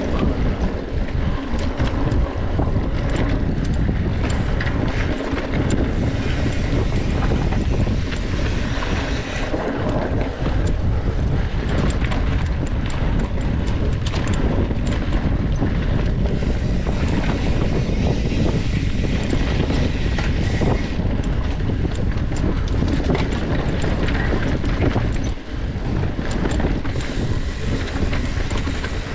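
Wind rushing over the microphone during a fast mountain-bike ride, with a constant dense rattle and clicking from the bike over rough trail.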